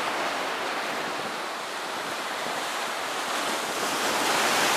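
Sea surf washing and breaking against the concrete tetrapods of a harbour breakwater: a steady rushing that swells a little near the end, with wind buffeting the microphone.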